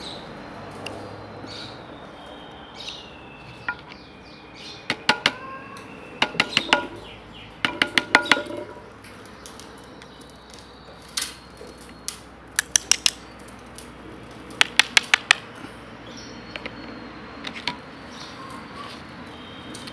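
A steel screwdriver tip clicks and scrapes against the aluminium body of a chainsaw carburetor as it is worked into the ports. The contacts come in quick bursts of sharp clicks, several groups of five to eight.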